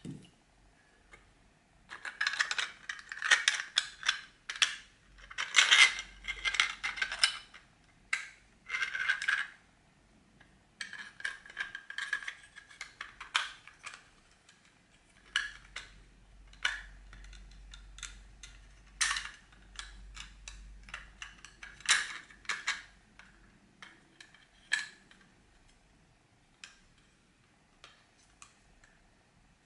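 3D-printed plastic toy parts clicking, scraping and rattling as they are handled and pressed together by hand. The clicks come in dense clusters through the first half and thin out toward the end.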